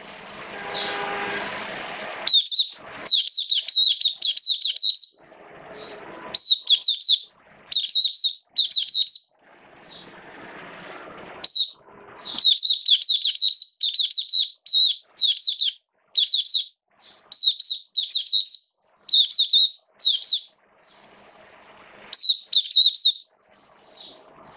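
Caged white-eye in song: quick twittering phrases of high chirps, starting about two seconds in and coming in bursts of one to three seconds with short pauses between them.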